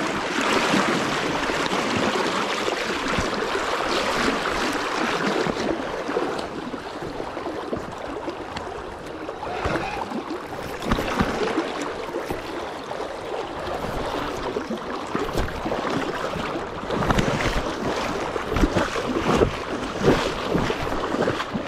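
River water rushing steadily, with wind buffeting the microphone in gusts that grow stronger in the second half.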